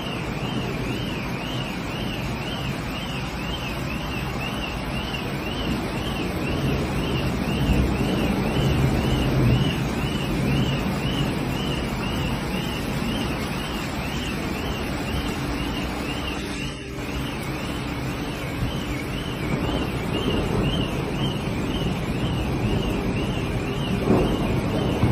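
A car alarm sounding continuously, its high tone warbling up and down about twice a second, over a steady rushing noise of rain and floodwater.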